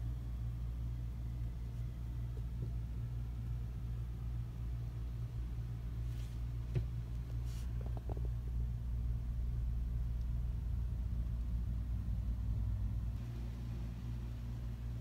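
Steady low room hum, with a few faint clicks and taps about six to eight seconds in.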